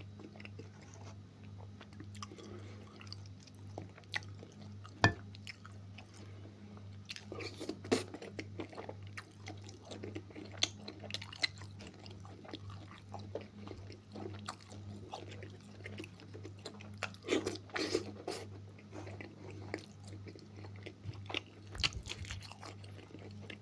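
Close-miked chewing and biting of beef offal and bread, with wet mouth smacks and scattered clicks, and a spoon scraping the plate. A steady low hum runs underneath.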